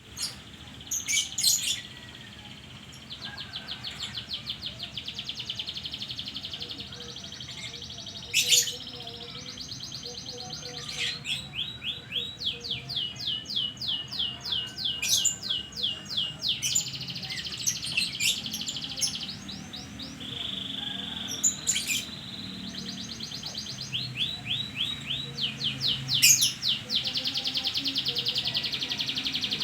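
Domestic canary singing: long runs of rapid trilled notes broken by sharp, high chips. It is a lure song meant to get a reluctant canary to start singing.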